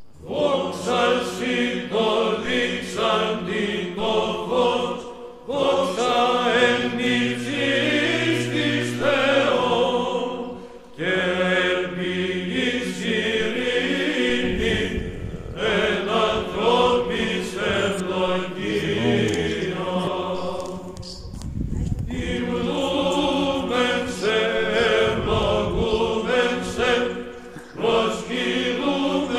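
Choir singing Orthodox church chant in slow, sustained phrases over a held low drone note, with short breaks between phrases every few seconds.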